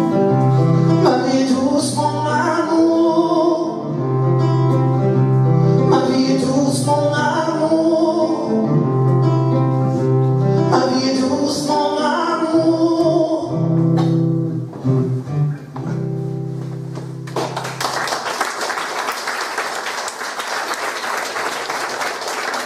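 A song in the French chanson style ending: a man singing over acoustic guitar and long held keyboard notes. The music stops about seventeen seconds in, and the audience applauds.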